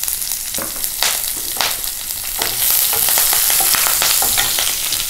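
Hot oil sizzling in a nonstick kadai as a South Indian tempering fries: mustard seeds, urad dal, chana dal and chillies. A wooden spatula stirs and scrapes through it, and the sizzle gets louder about two and a half seconds in.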